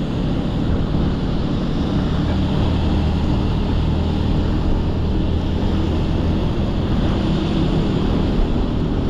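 Wind buffeting the microphone while riding, over a steady rumble and hiss of tyres on the wet road.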